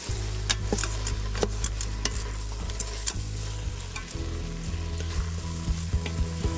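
Meatless crumbles, peppers, onion and mushrooms sizzling in an Instant Pot's inner pot on the sauté setting, stirred with a wooden spatula that scrapes and clicks against the pot.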